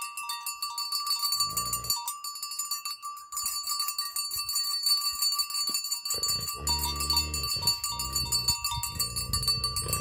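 Small bell on a dog's collar jingling steadily, with a low voice heard from about six seconds in.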